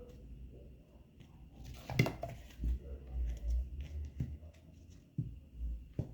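Victorinox Hunter Pro Alox folding knife's blade cutting into a plastic PVC water pipe, with a few separate sharp clicks and snaps.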